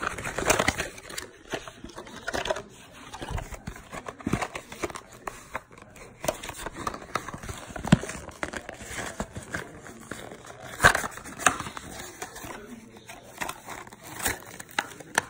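Clear plastic blister and cardboard backing of a Matchbox diecast toy car's package being torn open and crinkled by hand: a long run of irregular crackles and short rips, the loudest about halfway and two-thirds of the way through.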